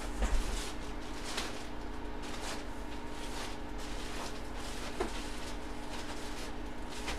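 Faint scattered rustles and light taps of items being handled, about eight over several seconds, over a steady low hum.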